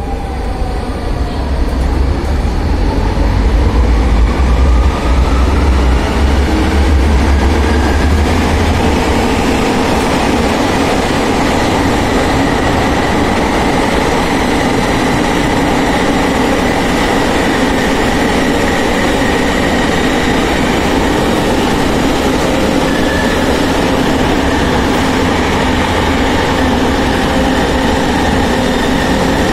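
Inside a Tram 2000 'Pony' Be 2/4 tram car pulling away: the electric traction drive whines, rising in pitch over the first eight seconds or so, over a heavy low rumble. The car then runs on steadily with an even hum and running noise.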